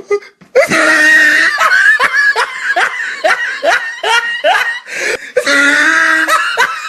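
A person laughing loudly: a drawn-out opening note, then a run of short falling 'ha' notes about three a second, then another long drawn-out laugh near the end.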